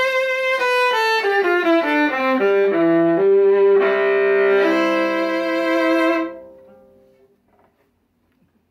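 Violin played with the bow: a quick descending run of notes, then held notes with several strings sounding together. The playing stops about six seconds in and rings out briefly.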